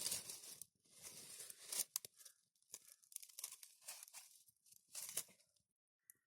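Faint, irregular rustling and crinkling with sharp crackles and tearing noises, as of dry material being handled and torn.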